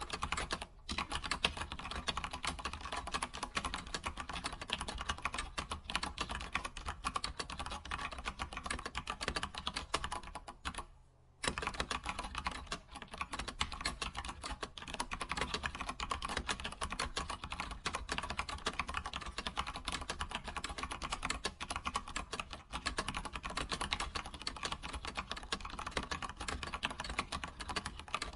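Computer keyboard being typed on continuously in quick, dense keystrokes, with a pause of about a second roughly ten seconds in.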